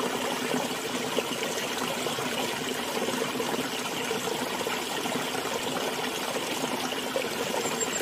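Shallow stream running over stones, a steady rush of flowing water.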